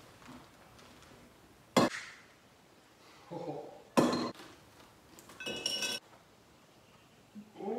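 Glass jars being handled and set down on a wooden table: two sharp knocks about two and four seconds in, a softer clatter between them, and a ringing glass clink near the end.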